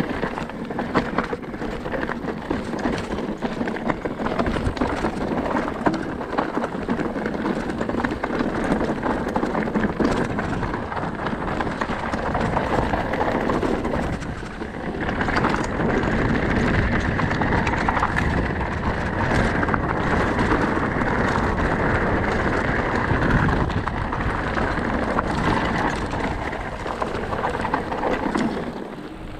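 Mountain bike rolling fast down a rocky singletrack: tyres crunching over stones and gravel while the bike rattles and knocks over the bumps. The rolling noise eases briefly about halfway through, then runs steadier and louder.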